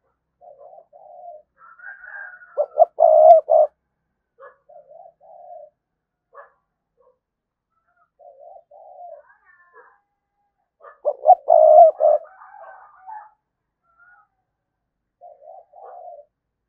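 Spotted dove cooing in short repeated phrases, with two louder, denser bouts of coos about three seconds in and again about eleven seconds in, and softer coos between them.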